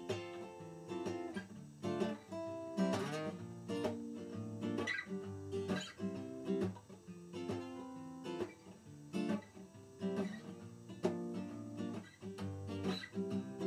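Solo acoustic guitar playing an instrumental intro: chords strummed and picked in a steady rhythm.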